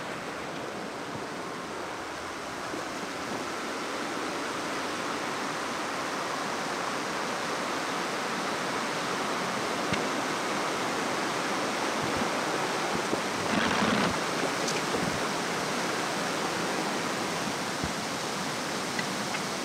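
Water rushing steadily through a single open canal lock sluice (paddle) as the lock chamber fills or empties, a continuous even rush that swells slightly over time, with a brief louder moment about two-thirds of the way through.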